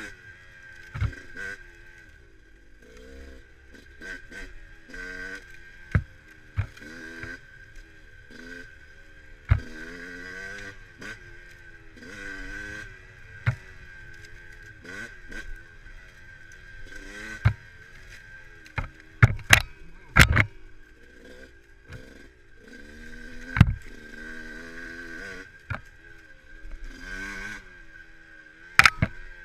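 Dirt bike engine revving up and down as the bike is ridden over a rough trail, its pitch climbing and dropping every second or two. Sharp knocks and clatter from the bike hitting bumps come through often, loudest in a cluster about two-thirds of the way through.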